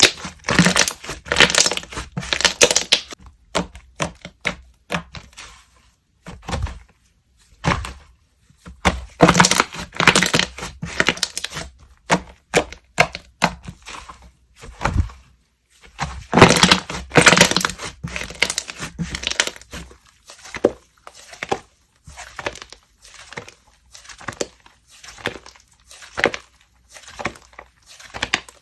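Hands stretching, folding and pressing a soft soufflé slime, giving dense crackling and popping in bursts with short pauses between. The loudest bursts come a couple of seconds in, about ten seconds in and about seventeen seconds in.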